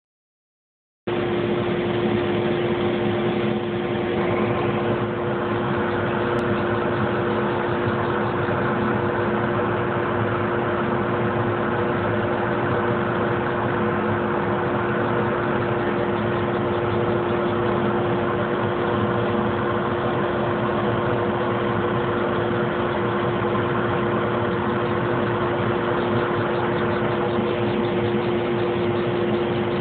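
Laser engraving machine running as it raster-engraves: a steady mechanical hum with a constant low tone, starting about a second in.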